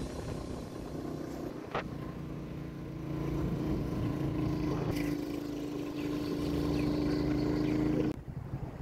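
Motorcycle engine running steadily while riding along a road, with a clear humming note that grows stronger partway through. The sound changes abruptly near the end.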